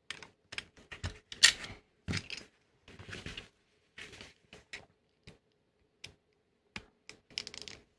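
Irregular clicks, taps and short scrapes of a craft knife and then a small screwdriver working at the metal shell and clip of a TV cable plug. The loudest click comes about one and a half seconds in.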